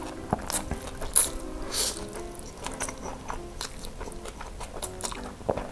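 A person slurping noodles and chewing with wet mouth clicks and smacks, with short slurps about a second and two seconds in, over soft background music.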